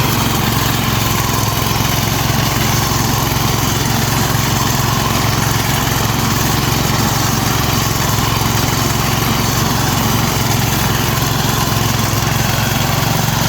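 Rice reaper machine's engine running steadily, a continuous even drone with no change in speed.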